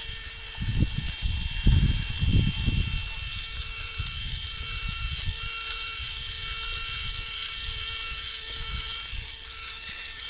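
Steady electric whir with several faint, steady whining tones, after a few low rumbling bumps in the first three seconds.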